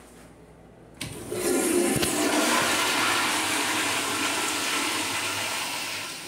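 Commercial toilet with a manual chrome flushometer valve flushing. About a second in, the valve opens with a sudden start into a loud rush of pressurised water, which slowly eases off toward the end.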